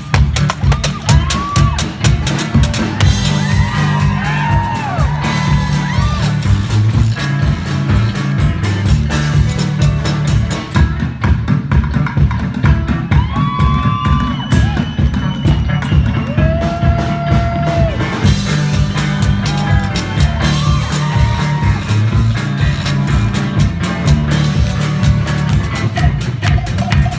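Live country-blues trio playing: amplified hollow-body electric guitar over a fast, steady drum beat, with notes that slide up and down.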